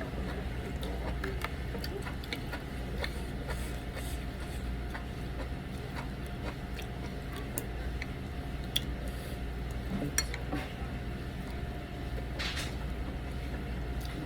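Steady restaurant background hum with scattered light clinks of cutlery and dishes, typical of eating from a bowl of pho.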